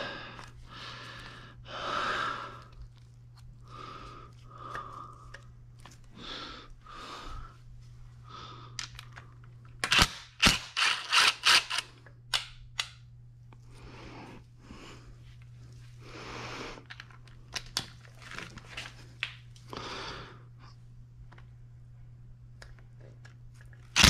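Socket ratchet clicking in short runs of sharp clicks as it works a bolt on the engine, mostly about ten seconds in and again near the end, between scraping and rustling of hands and tools on the engine.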